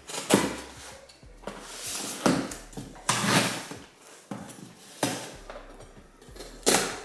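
Packaging being handled and torn open by hand: about half a dozen short bursts of rustling and ripping, with brief pauses between.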